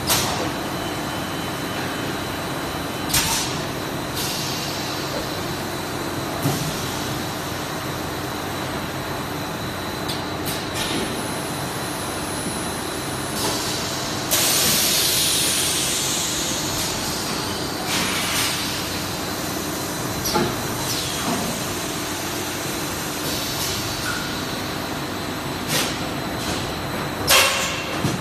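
JWZ-BM 12D extrusion blow molding machine running while making 10L jerrycans: a steady machine hum with sharp knocks every few seconds. About halfway through, a loud hiss of compressed air bursts out and fades over two to three seconds.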